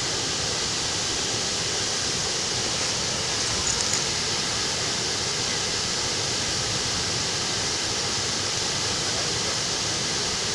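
Waterfall rushing: a steady, unbroken hiss of falling water that does not vary.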